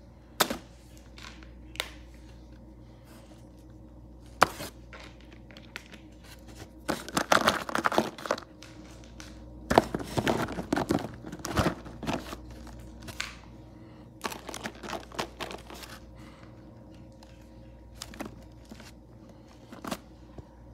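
Hard plastic toy animal figures knocking and clattering against each other as a hand rummages through a box of them: scattered sharp clicks, with the busiest clattering about seven to twelve seconds in.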